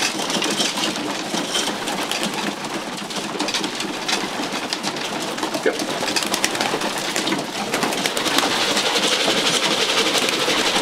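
A loft full of young racing pigeons cooing and flapping, with many quick taps and scuffles as the birds hop into stacked wooden basketing crates.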